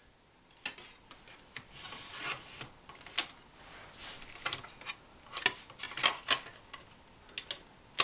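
Clicks and rubbing of plastic as a DVD is handled and fitted onto the open tray of a slim laptop DVD drive, with scattered sharp clicks from the disc and tray.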